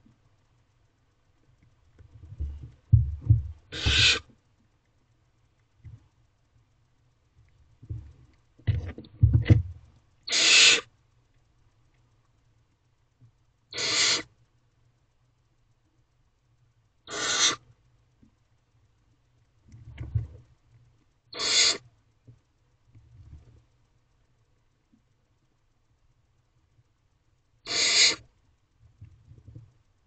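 Barn owlets giving their rasping, hissing begging call, six times, each about half a second long and several seconds apart. Between the calls are low thumps and bumps from the owlets moving about in the wooden nest box.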